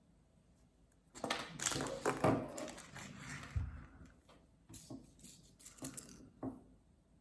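Small plastic packaging crinkling and toy pieces clicking as they are handled, in a dense burst about a second in, then a few separate light clicks and rustles.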